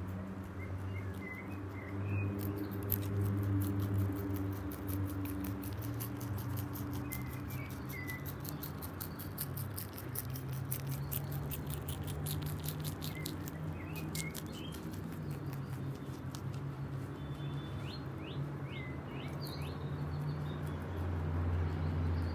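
Holland lop rabbits chewing fresh dandelion stems: long runs of rapid, crisp crunching clicks that pause now and then. A few bird chirps come through in the background.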